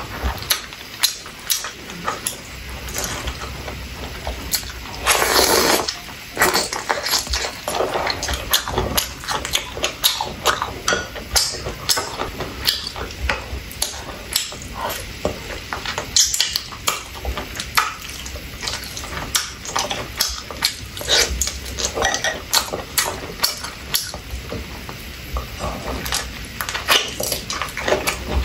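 Close-miked eating sounds: wet chewing and mouth smacks on sausage and chicken wing, with chopsticks clicking against plates, as a dense run of short irregular clicks and a longer noisy burst about five seconds in.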